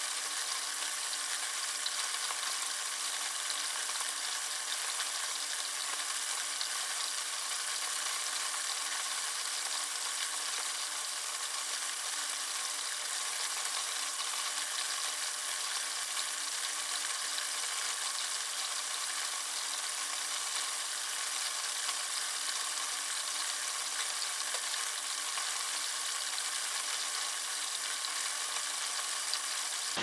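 Steady hiss of running water from a small terrarium waterfall, with no breaks or distinct events.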